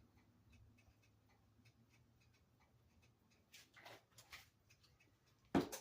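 Quiet kitchen sounds: a faint low hum with light, irregular ticking, a few brief rustles about two-thirds of the way through, and a sharp knock near the end.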